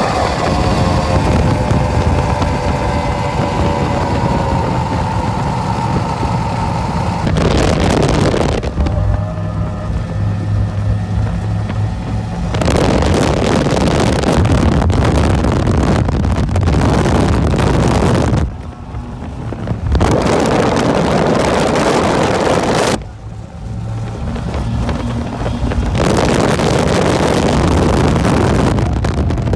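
Twin Mercury 2.5-litre 280 V6 two-stroke outboards running at high speed, their pitch easing slowly downward over the first several seconds. Then, from the cockpit, loud wind rush on the microphone comes and goes several times, with the engines' low steady drone between the gusts.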